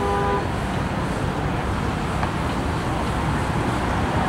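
Steady road and engine rumble of a car driving, heard from inside. A short electronic beep sounds right at the start.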